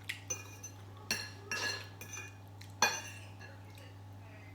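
Cutlery clinking against a plate or bowl while eating, with several sharp metallic clinks in the first three seconds and the loudest near the end of them, then quieter. A steady low hum lies underneath.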